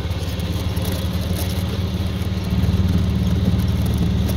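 Small gasoline engine of a farm utility vehicle running as it drives along, a steady low rumble that grows louder a little past halfway through.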